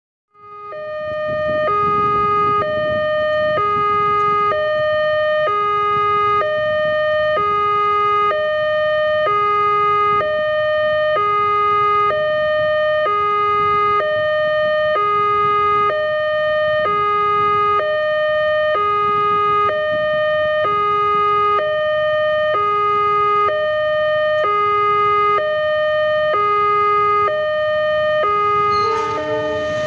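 Electronic warning alarm of a railway level crossing, two tones alternating low then high, each about a second long, over a steady higher tone, sounding continuously to warn of an approaching train.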